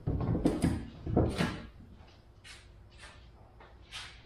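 Clunks and scraping creaks of an Audi R8 body shell being shifted and lowered onto a stripped C5 Corvette chassis, in a string of short bursts, the loudest two in the first second and a half.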